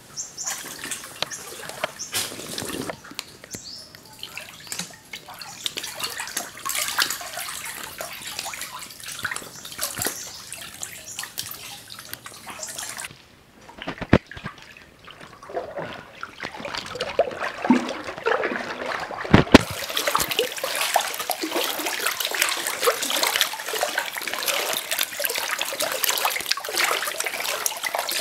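Water splashing, sloshing and trickling in a dense run of small splashes. A quieter stretch in the middle is broken by a few sharp knocks, then the splashing resumes louder.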